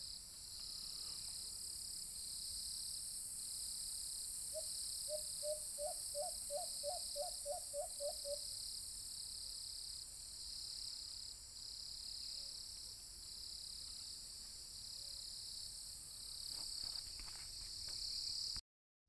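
Insects buzzing in a high drone that pulses about once a second. From about four and a half seconds in, a white-eared brown dove gives a quick run of about a dozen short, low cooing notes, about three a second, lasting some four seconds. The sound drops out for a moment near the end.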